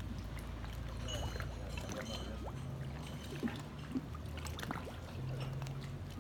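Calm harbour water lapping against the hulls of moored motorboats, with small irregular splashes and a low steady hum underneath.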